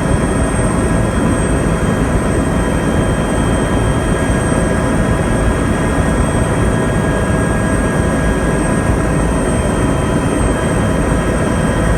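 Helicopter running steadily: a dense, unbroken rumble with several steady whining tones above it.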